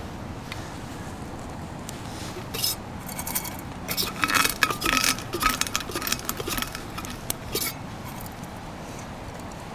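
Roasted coffee beans crunching and cracking as they are crushed between two nested stainless steel camp cups, with metal clinking. The crunching comes in bursts, about two and a half seconds in, again from about four to five and a half seconds, and briefly near the end.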